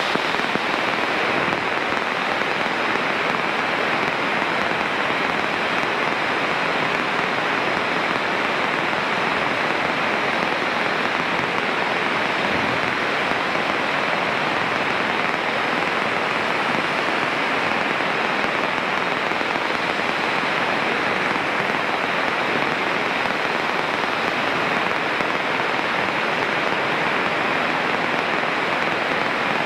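Steady, even hiss of static on the aircraft radio audio feed, from radio interference.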